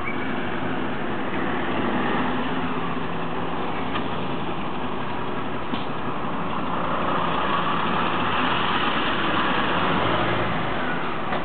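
Diesel engine of a Nissan Diesel city bus running at idle, then growing louder about seven seconds in as the bus moves off, easing again near the end.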